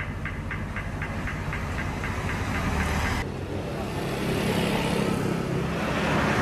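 Rapid electronic alarm beeping, about four high beeps a second, over a low pulsing rumble. About three seconds in it cuts off abruptly, giving way to louder, hissy outdoor noise.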